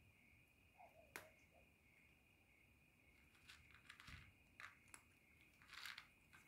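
A feral calico cat crunching dry cat kibble: faint, irregular crunches and clicks, thicker in the second half, with one sharp click about a second in. A steady high cricket chirr runs underneath.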